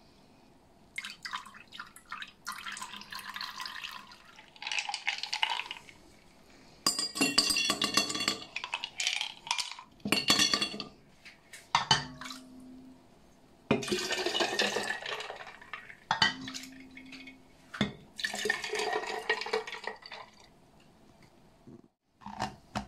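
Strained citrus juice being poured into a glass jar in several separate splashing pours, each lasting a few seconds, with a few sharp clinks of glass between them.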